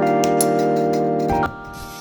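Background music: held keyboard chords, changing at the start and cutting off sharply about a second and a half in, leaving quieter background sound.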